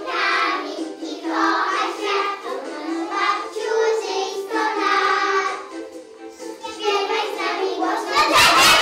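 A group of young children singing a song together over music. Near the end there is a short, loud burst of noise.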